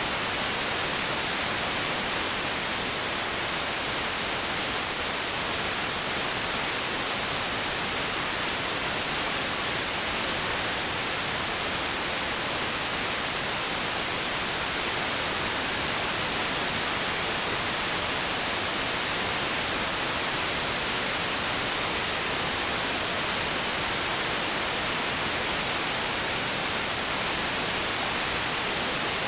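Steady hiss of static from an RTL-SDR receiver demodulating wideband FM with no station present: interstation noise as it is tuned across empty frequencies. The hiss is even and unbroken and sits mostly in the upper register.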